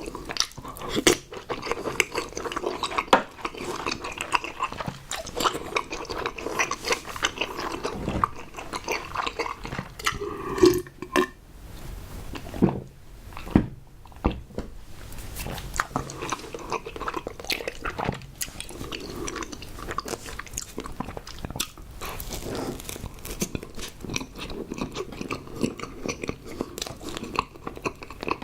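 A person chewing and biting food close to the microphone, a steady run of small mouth clicks and smacks with brief pauses; the food being eaten is tapioca pearls and cream bread.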